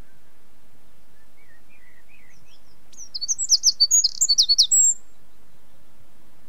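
A songbird singing: a few faint chirps, then about a second in from the middle a rapid run of high, sharply falling notes lasting nearly two seconds, ending in a thin high whistle. A steady faint hiss lies underneath.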